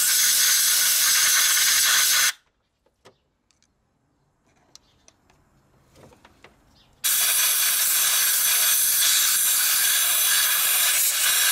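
Compressed-air blow gun hissing in two long, steady blasts, blowing dirt out of an empty diesel injector bore. The first blast stops about two seconds in, with a few faint clicks of handling in the quiet gap, and the second starts about seven seconds in.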